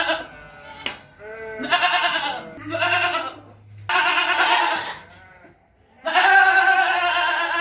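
Gujri goats bleating: four separate calls of about a second each, with the last one longest, near the end.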